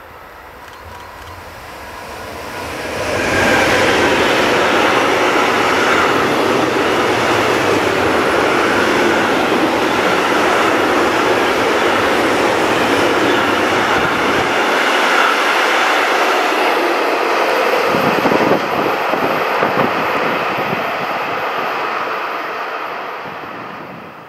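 Freight train of tank wagons hauled by an electric locomotive passing close by, its wheels rumbling and clattering on the rails. The sound swells about three seconds in, holds steady while the wagons roll past, and fades in the last few seconds.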